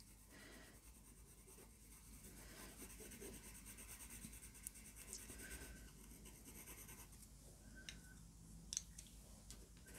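Faint scratching of an oil-based coloured pencil shading back and forth across toothy watercolour paper, in a soft steady rhythm. A couple of light clicks near the end as pencils are handled.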